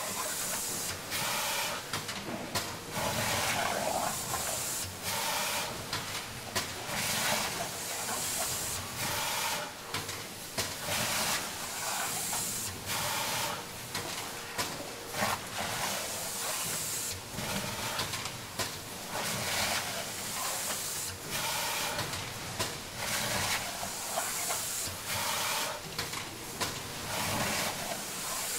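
Automated salmon-processing machine running: pneumatic arms hiss and clack in a repeating cycle, with many sharp clicks and louder hissing about every four seconds over a faint steady hum.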